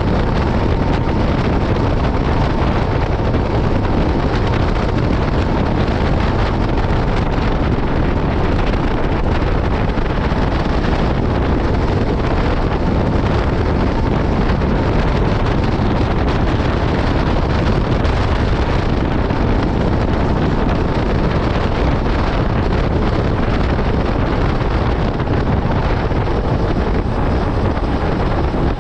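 Yamaha Byson FZ16's 153 cc single-cylinder engine running steadily through its stock exhaust, with wind on the microphone.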